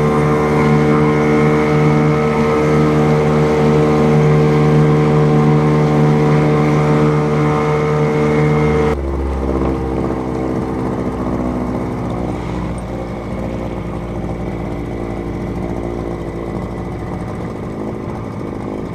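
An engine running steadily at a constant speed. About nine seconds in, the sound changes suddenly to a quieter, rougher running note.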